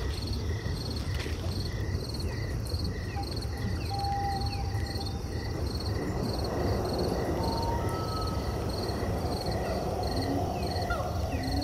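Forest ambience: a cricket-like insect chirping in an even pulse about twice a second over a steady rushing hiss, with a few short whistled calls here and there.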